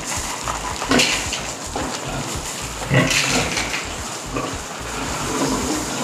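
A boar grunting in short bursts while it feeds from a hand-held bowl, the loudest grunt about three seconds in.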